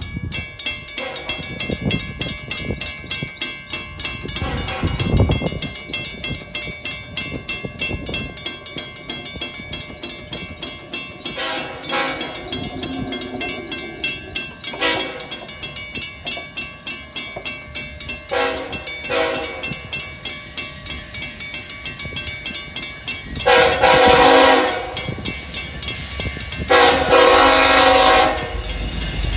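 Railroad crossing bell ringing fast and steadily while an approaching BNSF freight train's diesel locomotive sounds its horn for the crossing: several blasts, the last two long and the loudest, near the end.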